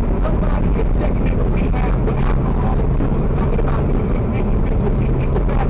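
Car driving steadily along a road, heard from inside the cabin: a constant low hum of engine and tyre noise.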